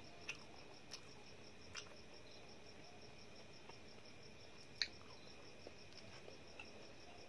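Faint, steady chirping of a cricket as a quick, even pulse, with a few light clicks and taps from fingers picking at a steel plate; the sharpest tap comes about five seconds in.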